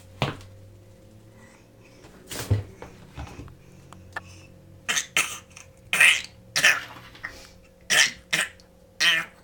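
Young child's funny cough: a series of short, sharp coughs, a few spaced out at first, then coming in quicker pairs in the second half.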